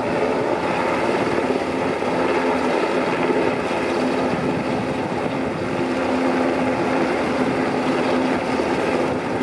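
Sikorsky S-92 search-and-rescue helicopter hovering, its rotor chop and twin turboshaft engines running steadily.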